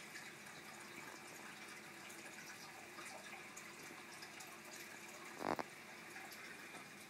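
Faint, steady running water from a turtle tank's filter return, with one brief louder blip about five and a half seconds in.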